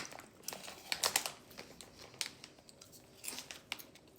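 Snack bag crinkling as it is handled, in irregular crackles that come in clusters and thin out toward the end.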